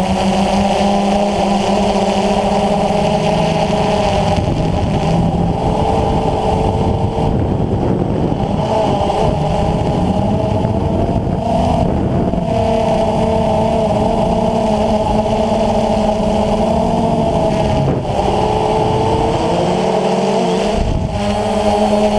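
DJI Phantom FC40 quadcopter's electric motors and propellers whining in flight, heard through the GoPro mounted on it. Several close tones drift up and down in pitch as the motors change speed, over a steady low rumble of wind.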